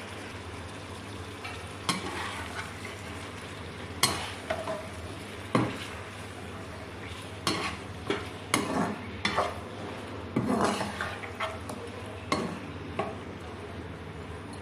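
Chicken pieces frying in oil in a karahi, with a steady low sizzle, while a spoon stirs them and scrapes and knocks against the pan at irregular moments, roughly once a second.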